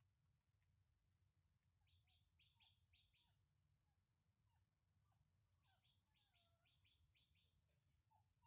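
Faint chirping of small birds: two quick runs of about five high chirps, a few seconds apart, with softer scattered calls between them.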